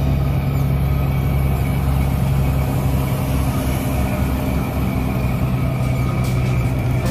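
Heavy truck's diesel engine running steadily, heard from inside the cab: a constant low drone with road noise over it.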